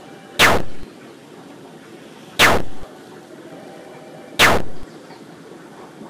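An added sound effect played three times about two seconds apart: each a sharp, noisy burst about half a second long that slides slightly downward in pitch.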